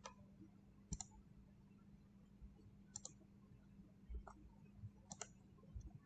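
Computer mouse clicks: about five sharp clicks spread a second or so apart, two of them quick double clicks, over a faint steady hum.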